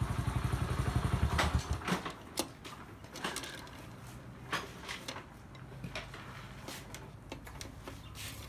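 Small motorcycle engine idling with a fast, even pulse, cut off abruptly about two seconds in. Scattered clicks and knocks follow.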